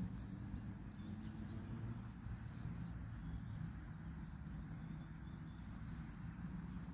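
Outdoor ambience of a sheep flock grazing in dry grass: a steady low rumble, with one faint high chirp about three seconds in.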